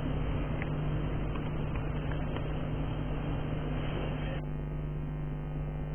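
Muffled crowd noise with a steady hum under it, thinning out about four and a half seconds in.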